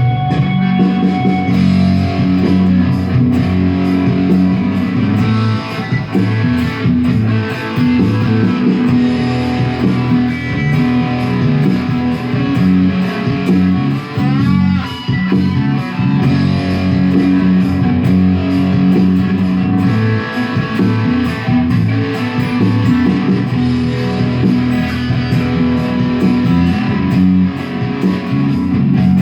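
Rock music led by electric guitar over bass, with a steady beat throughout.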